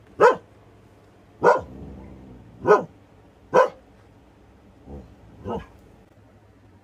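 Siberian husky giving single sharp barks about once a second, four loud ones followed by two softer ones near the end: alarm barking at a plastic bag blown into the yard.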